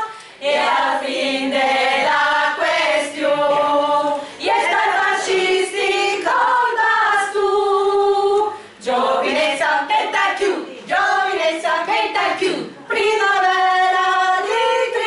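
Small women's choir singing a cappella, several voices together in phrases of about four seconds, each ending in a short breath pause.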